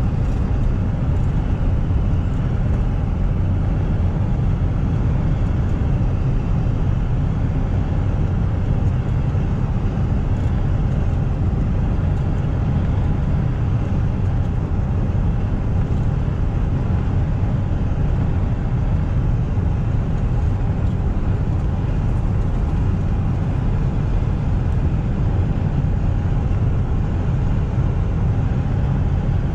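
Steady low rumble of a car driving along a road, engine and tyre noise running evenly with no change in pace.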